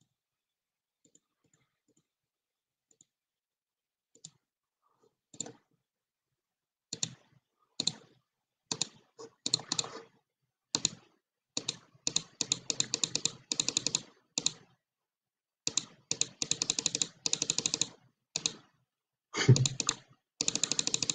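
Computer keyboard keys clicking in quick runs after a few seconds of near silence, with one louder knock near the end.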